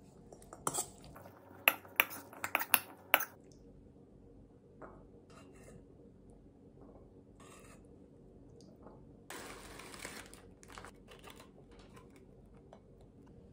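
Metal spoon clinking and scraping against a stainless steel mixing bowl while stirring and serving a bean salad, with a quick cluster of sharp clinks in the first three seconds, then softer scattered taps. A brief rustle about nine seconds in.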